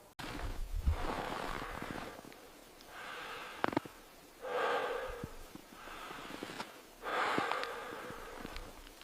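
A person breathing heavily, with a series of ragged breaths in and out, about one every second or so, and a few faint clicks among them.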